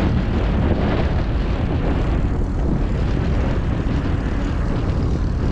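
Wind rushing over an action camera's microphone on a moving mountain bike: a loud, steady rumbling noise with no pitch to it.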